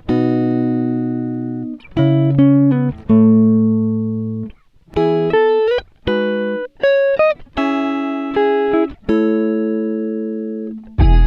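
Background music: a slow plucked-string melody of single notes that ring out and fade, a few of them sliding in pitch.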